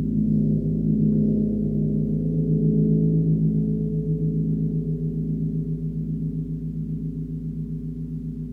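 Large gong tuned to G#1 (51.91 Hz), struck softly with a felt mallet near its centre: a deep hum with a slow wavering pulse that swells for about three seconds, then slowly fades.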